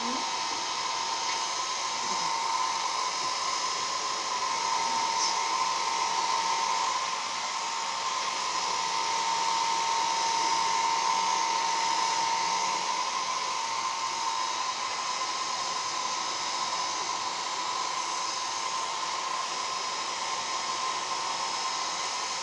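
Handheld hair dryer running continuously: a steady high whine over a rush of blown air, its level swelling and easing a little.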